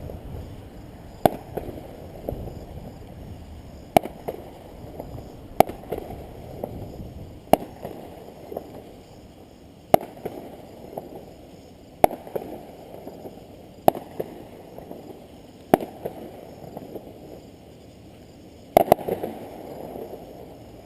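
Fireworks display: aerial shells bursting in a steady series of sharp booms about every two seconds, each trailing off in a rumbling echo, with a quick cluster of bursts near the end.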